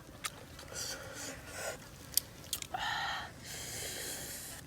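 A person chewing and biting into food: a few sharp clicks, then longer crunchy, noisy stretches in the second half.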